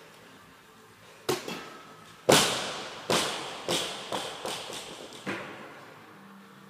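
A small plastic bottle dropped onto a rubber gym floor, knocking down and bouncing in a string of about eight knocks. The loudest knock comes about two seconds in, and the rest come quicker and fainter, each echoing in the large hall.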